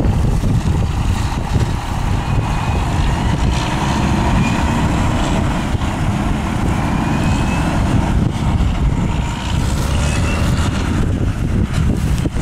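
Loaded grain semi-truck's diesel engine pulling away steadily, with wind noise on the microphone. A faint rising whine comes back several times.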